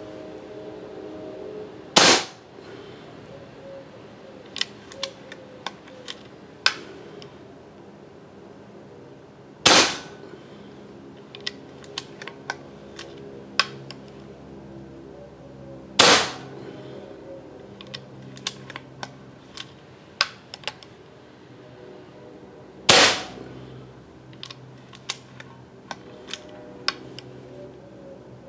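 Evanix Rainstorm .25-calibre PCP air rifle, regulated with a Huma regulator, firing four single shots about seven seconds apart, each a sharp crack. Fainter clicks come between the shots.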